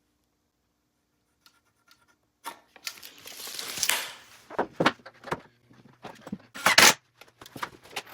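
A steel tape measure being used: a rasping slide as the blade is drawn out, then several sharp clacks, the loudest near the end.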